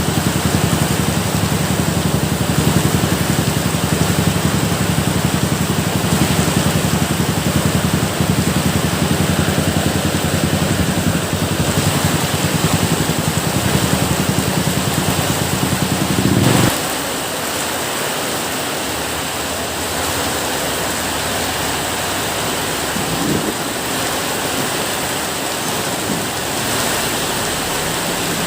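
Steady heavy rain hissing, with a low steady rumble under it that cuts off suddenly a little past halfway, leaving the rain alone.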